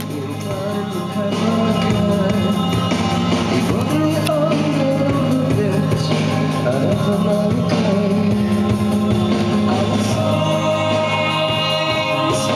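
A song with singing and instruments playing back from a cassette on a 1976 Magnavox cassette deck, now running on new drive belts, heard through stereo speakers. The music swells in over the first second or so, then stays steady and loud.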